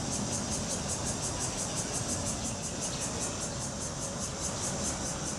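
A high, steady insect chorus pulsing evenly about five times a second, over a low, constant rumble of distant traffic.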